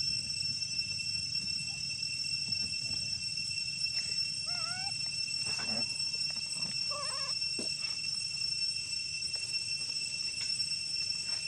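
A monkey's short, high, wavering chirp-like calls: one about four to five seconds in and another around seven seconds, over a steady high-pitched whine and a low rumble.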